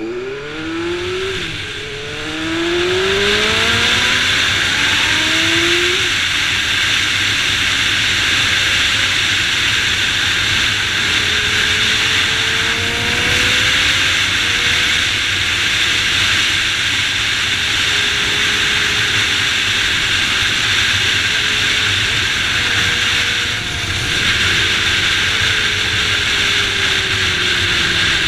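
Motorcycle engine accelerating hard, its pitch climbing several times in a row as it shifts up through the gears over the first few seconds, then a steady loud rush of wind over the microphone at speed with the engine faint underneath.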